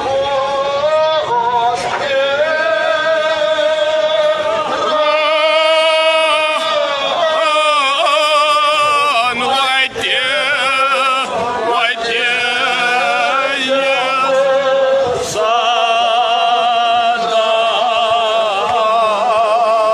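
A man singing a Shia mourning lament (noha) in a loud voice, long held phrases with a wavering, ornamented pitch and only brief breaks between them.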